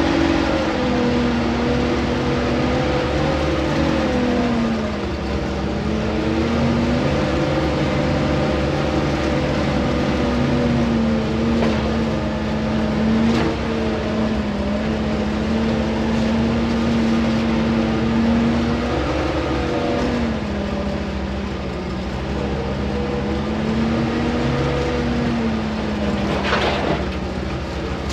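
GAZ-66 truck's engine heard from inside the cab, pulling the truck off-road, its pitch rising and falling with the throttle. A few sharp knocks come about halfway through, and a brief rattle near the end.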